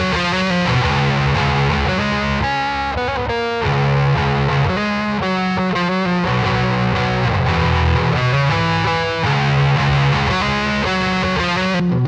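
Electric guitar played through a Wrathprayer one-knob distortion pedal with an HM-2-style tone stack: a heavily distorted metal riff. Right at the end the pedal is switched off and the high fizz drops away.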